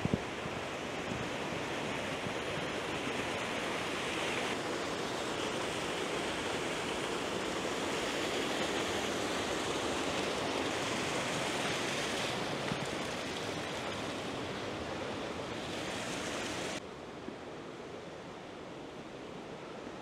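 Rain-swollen river gushing in spate, a steady rushing of fast water. About three-quarters of the way through it drops suddenly to a quieter, duller rush.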